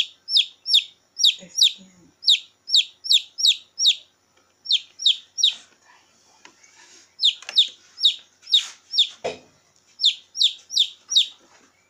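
A downy chick peeping shrilly over and over: short, high, downward-sliding peeps, about two to three a second, in runs broken by brief pauses.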